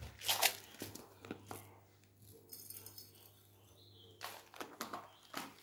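A metal spoon clinking and scraping against a small ceramic bowl as lemongrass salt is spooned into it: a few sharp clinks, with a brief metallic ringing around the middle.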